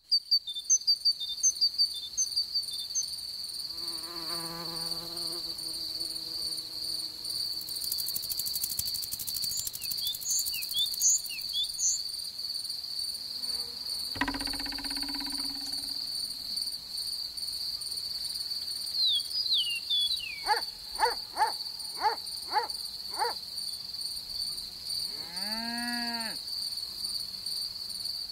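Grassland insect ambience: a steady, high insect trill, with short chirps in the first few seconds and again about ten seconds in. A run of six short sliding calls comes about twenty seconds in.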